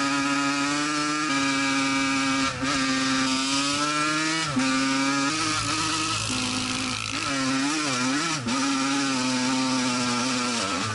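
1984 Honda CR80R's single-cylinder two-stroke engine running at high revs while riding, its pitch holding level with brief dips about one, two and a half and four and a half seconds in. From about seven seconds in the revs swing up and down as the throttle works over rough trail, with a few short knocks.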